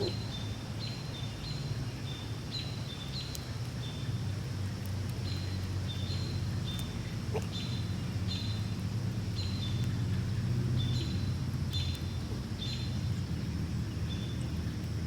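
Fox squirrel hiccuping: short, high-pitched squeaks, often in pairs of a higher then a slightly lower note, about one or two a second. Under them runs a steady low rumble of background noise.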